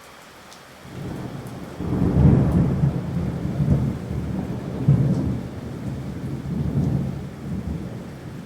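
Steady rain with a long roll of thunder that starts about a second in, swells several times and slowly eases off.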